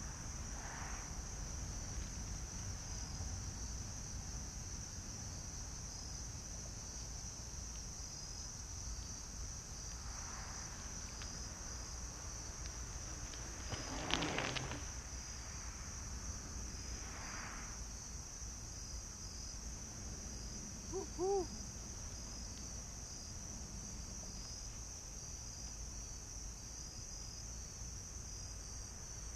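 Crickets trilling steadily in a high, continuous chorus. About halfway through, a bicycle rolls past close by on a dirt and gravel path, which is the loudest moment, and a short squeak follows a few seconds later.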